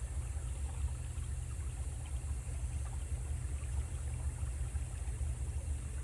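Low, uneven rumble of wind buffeting the phone microphone on a boat moving along a river.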